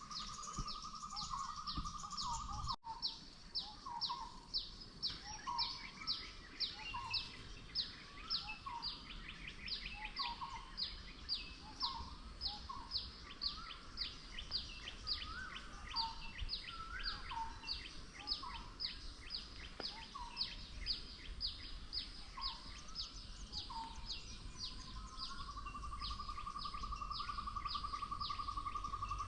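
Tropical forest wildlife calling: a high, sharply falling note repeated evenly about twice a second, short lower calls about once a second, and a steady buzzing drone that stops about two seconds in and returns about 25 seconds in, over a low steady background hiss.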